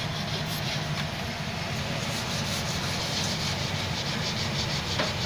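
Car engine idling steadily with the hood open, with a fast, even ticking over its running sound.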